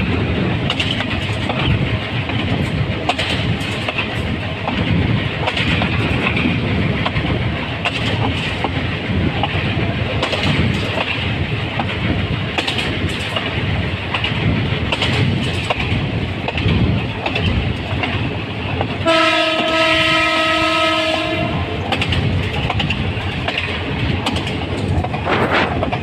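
Locomotive 2919 running along the track, a steady rumble and clatter of wheels on rails heard from the cab. Late on, its horn sounds once in a single steady blast of about two and a half seconds.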